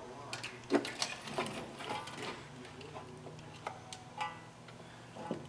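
Light metallic clicks and knocks, a handful spread over a few seconds, over a faint steady low hum, as a small-block Chevy V8 hanging from a hoist is eased down into a pickup's engine bay.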